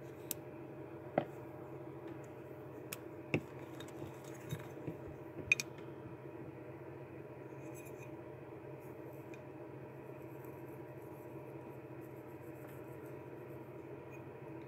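A marker and a glazed ceramic tile being handled: a handful of light clicks and taps in the first six seconds, then faint scratching of the marker tip on the tile, over a steady low background hum.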